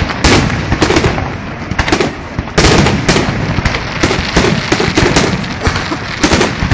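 Fireworks going off in quick succession: a dense, irregular run of sharp bangs and crackles.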